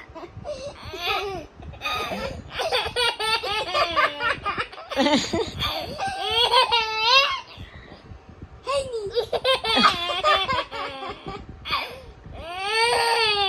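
Young children laughing hard in high-pitched bursts, several rounds of laughter with short breaks between them.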